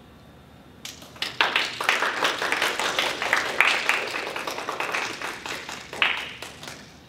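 Audience applauding. A few claps come in about a second in, build to steady clapping, then die away near the end.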